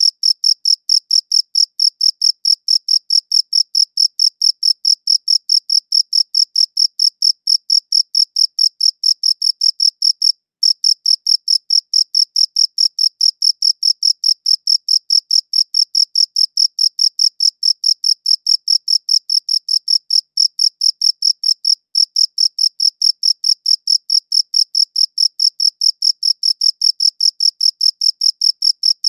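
A cricket chirping steadily in a fast, even train of high chirps, with one brief pause about ten seconds in.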